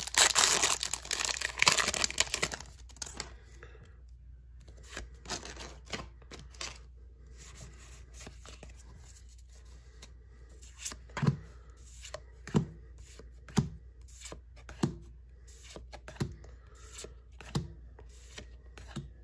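Foil wrapper of a Pokémon trading-card booster pack torn open, crinkling loudly for about two and a half seconds. The cards are then handled one at a time, with a sharp click or snap every second or so as each card is flicked to the back.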